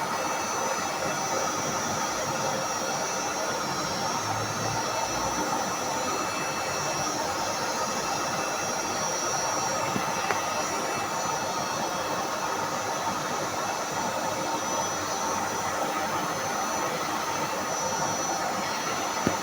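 A steady, even rushing hiss, like air driven by a fan or blower motor, unchanging throughout, with a single small tick near the end.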